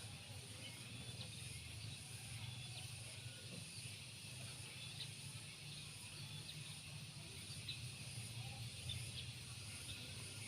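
Quiet rural outdoor ambience: a steady high insect drone with scattered short bird chirps over a low steady hum.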